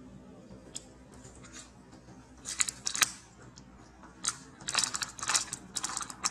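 Thin plastic water bottle crinkling and crackling as a macaque grips and handles it: scattered sharp clicks, thickening into dense crackly clusters from about halfway through.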